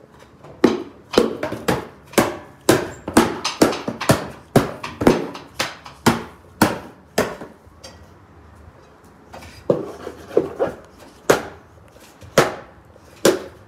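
A box being struck hard again and again to break it open: sharp knocking blows about two a second, a pause of about two seconds in the middle, then more blows.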